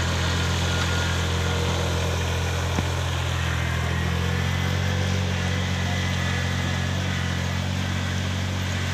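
Riding rice transplanter's engine idling steadily, with one brief click about three seconds in.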